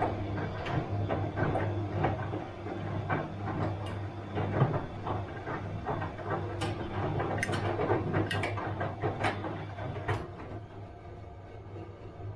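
Bosch washing machine running: a steady motor hum with irregular knocks and clatter as the drum turns the load, busiest in the second half and easing off near the end.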